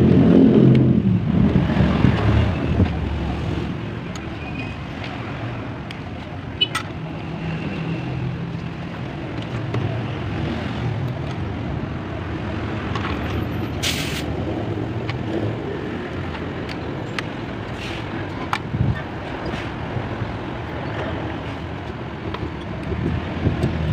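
A steady low engine rumble with scattered light clicks, and one short sharp hiss about 14 seconds in.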